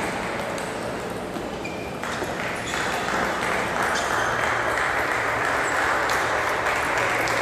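Table tennis ball being struck back and forth, a few sharp clicks off paddle and table. About two seconds in, crowd noise and clapping swell up as the point ends.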